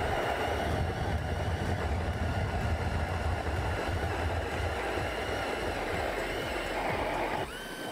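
Cordless drill driving an ice auger through lake ice: a steady motor run with the auger grinding as it bores a hole, dropping off about seven and a half seconds in.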